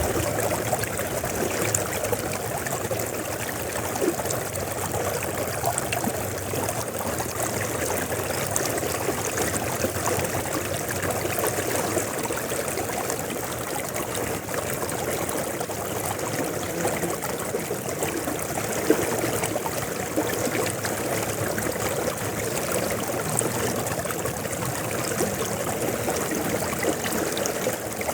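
River water flowing steadily over stones, a continuous rushing and trickling.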